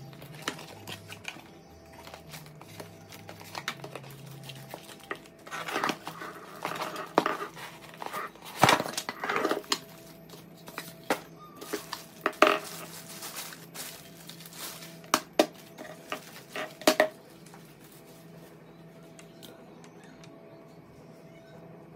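Unboxing of a mini waffle maker: cardboard packaging and plastic wrapping rustle and crinkle, with sharp knocks and clicks as the box and appliance are handled on a countertop. The handling dies down to a faint steady background in the last few seconds.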